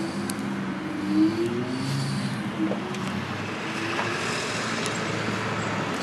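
A motor vehicle's engine running nearby over steady road-traffic noise, its low hum wavering slightly in pitch and fading about halfway through. A few faint clicks from pliers working copper wire come over it.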